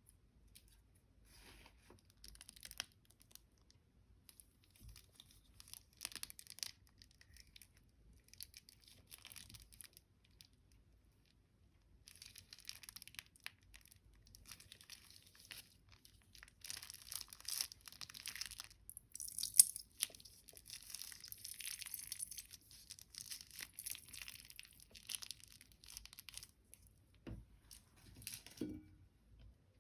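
Hands working slime and its plastic piping bags, giving intermittent sticky crackling and crinkling in short bursts. The sounds grow busier and louder in the second half, with a couple of soft thumps near the end.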